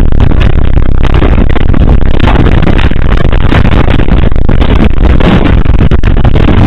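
Earthquake shaking a shop, heard through a security camera's microphone: a continuous heavy rumble with dense rattling and clattering of fixtures and hanging goods, so loud it runs at the top of the recording's range without a pause.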